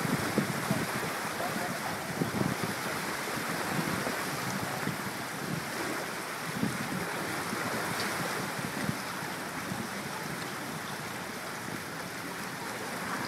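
A steady rushing noise, with wind buffeting the microphone in irregular low gusts.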